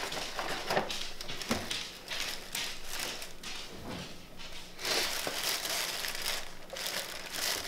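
Tissue paper rustling and crinkling as it is pulled out of a paper gift bag, in irregular handfuls, growing denser and louder a little past the middle.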